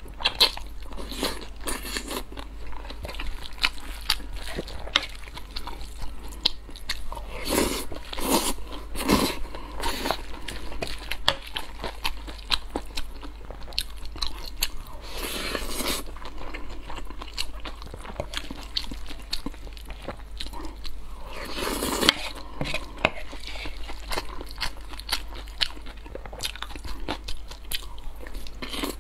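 Close-miked eating of stir-fried wide starch noodles with egg: wet chewing and mouth clicks throughout, with a few longer slurps of noodles spread through.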